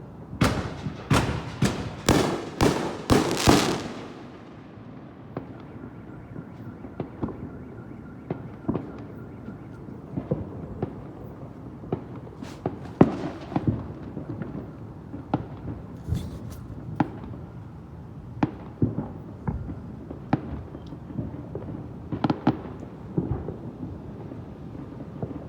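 Fireworks exploding: a rapid volley of loud bangs in the first four seconds, then scattered quieter bangs and pops.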